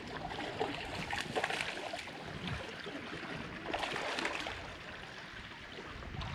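Small stream's water gurgling and trickling, with irregular splashes from a small hooked trout being played on the fly line.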